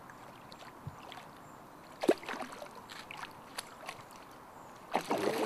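A hooked carp splashing at the surface close in at the landing net, with a sharp, loud splash about two seconds in, scattered smaller splashes after it, and a flurry of splashing near the end.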